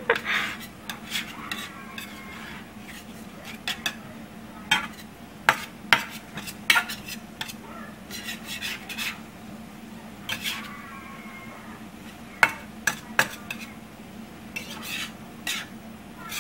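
Metal spatula stirring and scraping scrambled eggs around a stainless-steel frying pan, with irregular clinks and scrapes against the pan.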